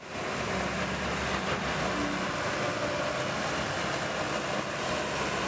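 Steady engine rumble of heavy machinery with a hiss over it, which cuts off suddenly at the end.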